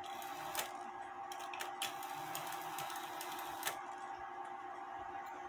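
Irregular light mechanical clicks and ticks from a Regula 701 cuckoo clock movement as its levers and wheels are worked by hand to trip the cuckoo and music train, over a faint steady hum.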